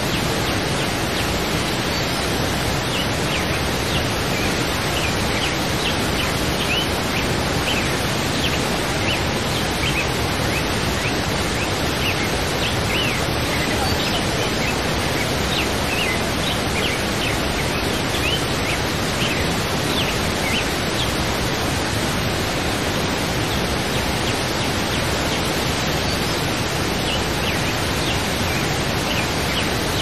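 Waterfall's steady rush of falling water, with short high bird chirps scattered over it throughout.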